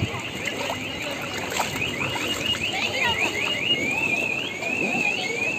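Car alarm sounding: a fast run of rising chirps, about five a second, that switches about three and a half seconds in to a slower up-and-down warble.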